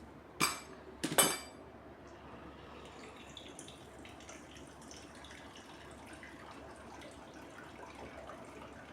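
Water poured in a faint, steady trickle into the HHO generator's electrolyte bottle holding the potassium hydroxide, after two ringing clinks near the start.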